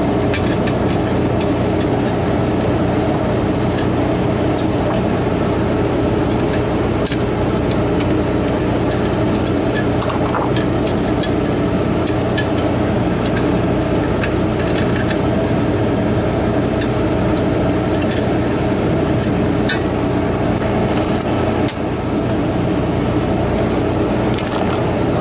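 Steady drone of a running refrigeration condensing unit, its fan and compressor holding one even pitch. Scattered light metallic clicks from a screwdriver working the relay and overload off a compressor's terminals.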